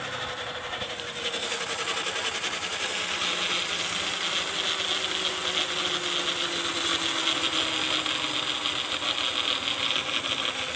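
TVS Stryker motorcycle's drive chain and front sprocket making a fast grinding rattle with the clutch pulled in, like a failing clutch bearing, over a faint slowly falling hum. The mechanic traces it to a dry chain and a worn front sprocket with bent teeth, though it seems to come from inside the engine.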